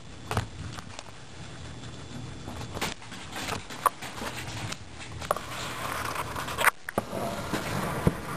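Guinea pigs gnawing on a carrot: scattered sharp crunching bites over a soft rustle, the rustling growing louder in the second half.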